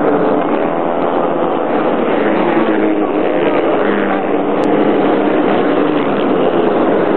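A pack of off-road racing motorcycles, many engines revving over one another at speed in a dense, steady blend of engine notes.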